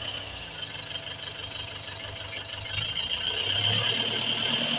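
Tractor engine running steadily, growing louder about three seconds in.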